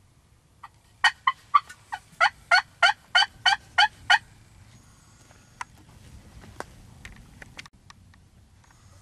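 A run of about a dozen loud turkey yelps, evenly spaced over about three seconds, each note sliding down in pitch. A few faint clicks and taps follow.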